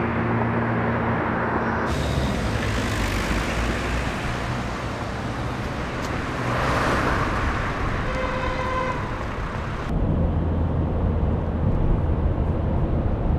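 Street traffic noise with a car passing and a car horn sounding once for about a second. Near the end it changes to the low rumble of a car's engine and road noise heard from inside the cabin.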